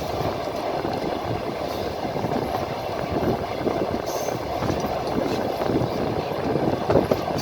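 Moving train running along the line: a steady rumble of wheels on rails heard from the carriage window, with a few louder knocks near the end.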